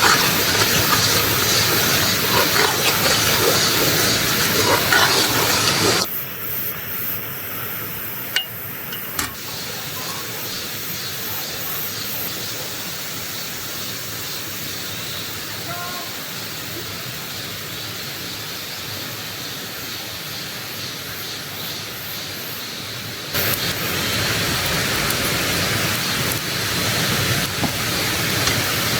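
Mountain stream water rushing and splashing over rocks as a steady noise. It drops abruptly to a softer flow about six seconds in and jumps back to the louder rush about six seconds before the end.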